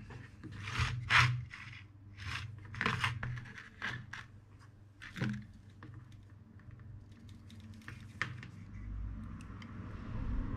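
Handling noises at a soldering bench: tweezers, soldering iron and the metal-cased control unit being moved and set down, giving a run of short scrapes and rustles in the first few seconds and a few sharp clicks later, over a low steady hum.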